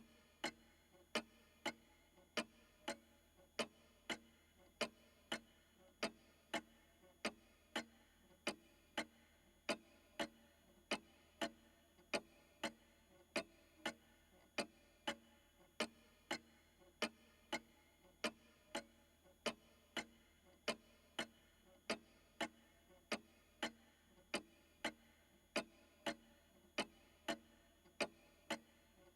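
Old pendulum clock ticking steadily: its escapement gives sharp, evenly spaced ticks, a little under two a second.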